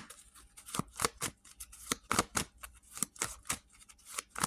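Tarot cards being shuffled and handled by hand: a run of quick, irregular card slaps and flicks, several a second.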